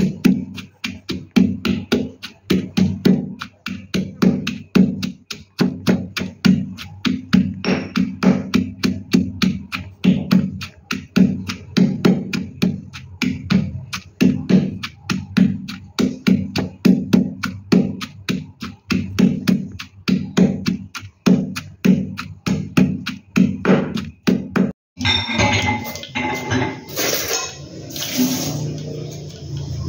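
Stone pestle pounding sliced shallots and garlic in a stone mortar, about three dull thuds a second. Near the end this gives way to hot oil sizzling in a wok.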